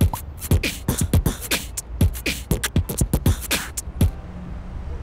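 A man beatboxing into cupped hands: a fast run of deep kick-drum thumps and sharp snare and hi-hat clicks, which stops about four seconds in.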